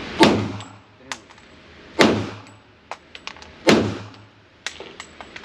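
Three loud handgun shots fired at a steady pace, about a second and a half to two seconds apart, each with a reverberant tail in an enclosed range, and fainter sharp cracks in between.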